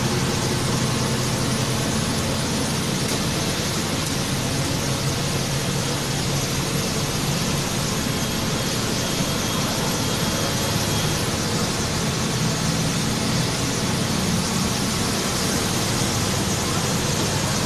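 Bus diesel engine pulling steadily up a climb, heard from inside the cab, with a broad hiss of tyres on the wet road.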